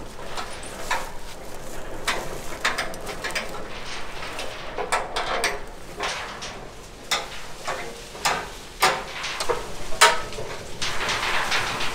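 Old limestone-quarry conveyor and its chain drive running, with irregular metal clanks and rattles.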